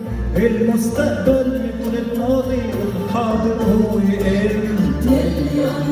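Live Arabic music from an oud and orchestral ensemble: a melody that bends in pitch over a steady low bass line.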